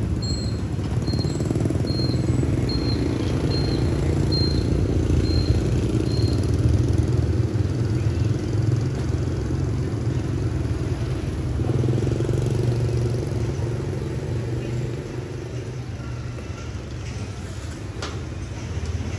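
Motorbike street traffic: a steady low engine hum as motorbikes run and pass, easing off after about fifteen seconds. A short high beep repeats about every two-thirds of a second for the first six seconds or so.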